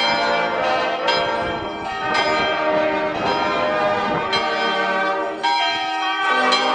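Church bells ringing, fresh strokes about once a second overlapping into a continuous peal.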